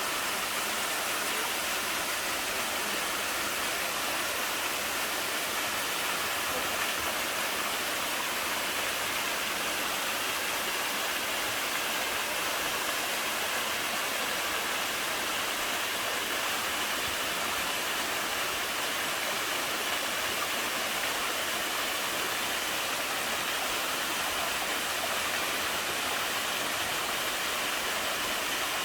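Waterfall rushing: a steady, even hiss of falling water that holds without change.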